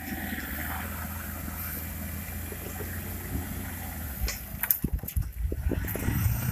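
Ford Ranger pickup's engine running steadily under load as the truck climbs a steep grassy slope off-road. About four seconds in, the drone gives way to irregular knocks and thumps for a couple of seconds.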